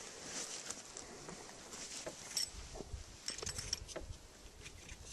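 Faint, scattered small clicks and rustling of gear being handled.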